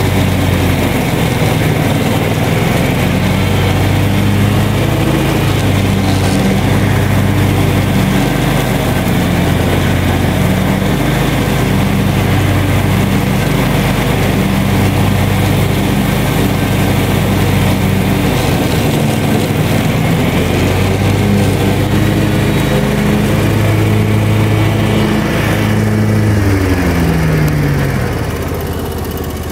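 Zero-turn riding mower's engine running steadily under load as it cuts deep, overgrown grass; near the end its pitch drops and the sound falls away.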